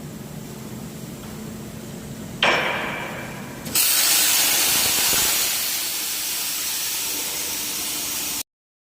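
Cutting torch on a CNC gantry cutting machine firing up over a low machine hum: a sudden hiss about two and a half seconds in, stepping up a second later to a loud, steady jet hiss that cuts off abruptly near the end.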